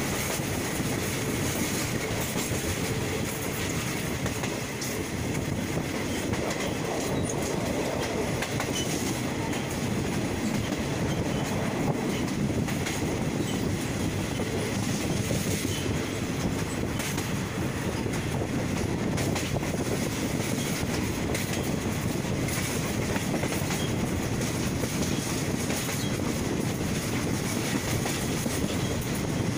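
A train running at speed, heard from inside the carriage: a steady rumble of wheels on the rails, with a clack from the rail joints now and then.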